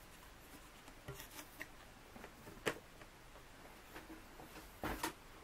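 Faint handling of rolls of paper on a table: light rustling and a few soft knocks, a sharper click about two and a half seconds in and a louder pair of knocks near the end.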